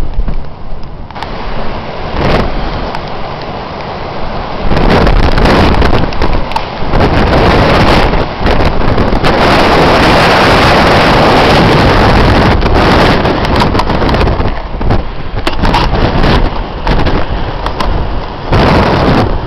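Storm wind buffeting the microphone in loud, rough gusts, surging and easing, loudest through the middle.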